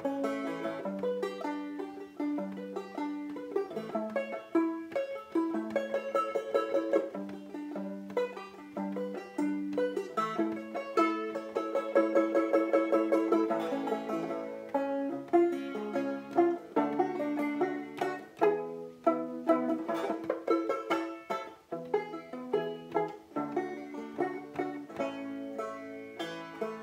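Solo banjo playing a Dixieland-style tune, picked notes and chords with two stretches of rapid tremolo strumming.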